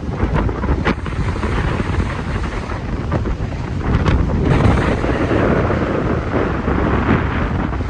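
Strong wind buffeting the microphone: a loud, uneven rumble that swells about four seconds in.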